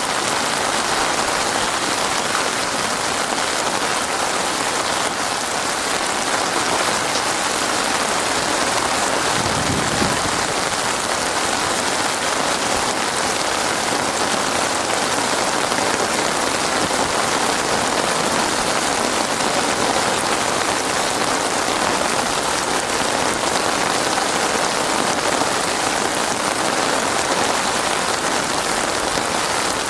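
Heavy rain pouring steadily onto surfaces, a dense even hiss that never lets up, with a brief low rumble about a third of the way through.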